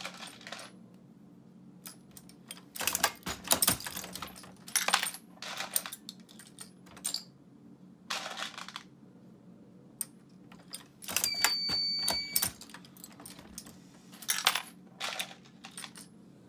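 Dillon 550 progressive reloading press being cycled: irregular metallic clicks, clacks and clinks from the press and the brass cartridges. About eleven seconds in there is a brief high-pitched tone lasting just over a second.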